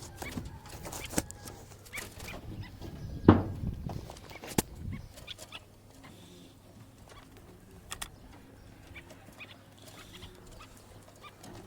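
Clicks and knocks of a bird trap being handled and set, the loudest a sharp knock about three seconds in, then quieter after about five seconds.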